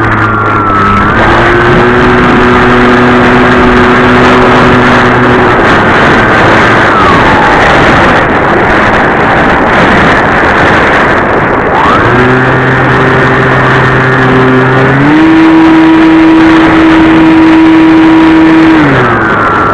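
Electric motor and propeller of a Multiplex Easy Star II RC glider whining at a steady pitch over a constant rush of wind. The whine glides down and stops about a third of the way in as the throttle is cut, returns near the middle, steps up to a higher setting a few seconds later and falls away near the end.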